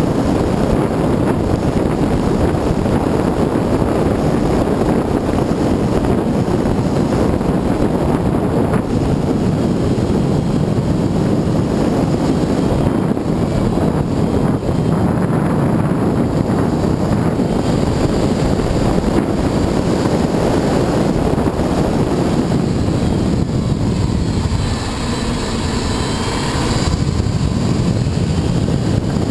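Subaru Forester 2.5XT at track speed, its turbocharged flat-four engine running under load under heavy wind noise on an exterior-mounted camera's microphone. The noise is steady and dips briefly near the end.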